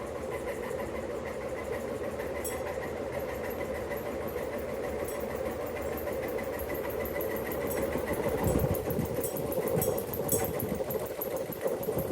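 Hampton Bay Glendale ceiling fan spinning fast on oversized 42-inch Littleton blades: a steady hum and rush of air with a fast regular ticking. Low gusty rumbles join in the second half.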